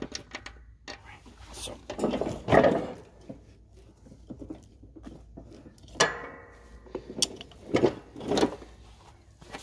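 Metal clunks, knocks and scraping as the blade spindle assembly is worked out of a rusty steel Cub Cadet LT1040 mower deck, loudest a couple of seconds in and near the end, with a short metallic ring about six seconds in.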